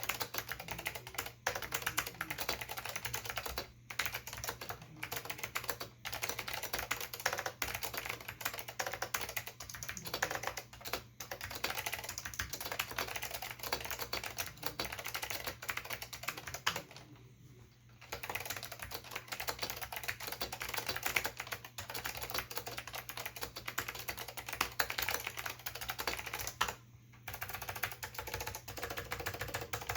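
Fast, continuous typing on an Acer KB-101AS keyboard with clicky Alps SKCM Blue switches: a dense stream of sharp key clicks, broken by short pauses about 17 seconds in and again near 27 seconds.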